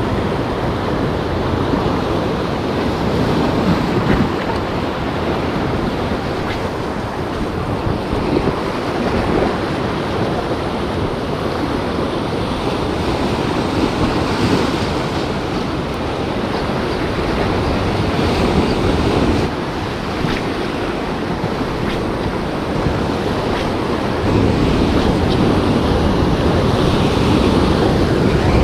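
Ocean surf breaking and washing over a rocky reef shoreline, a steady wash of water that swells now and then and grows louder about 24 seconds in.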